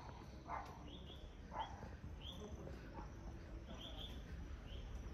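Faint animal chirps: short high calls at irregular intervals about once a second, with two louder, lower falling calls in the first two seconds, over a steady low rumble.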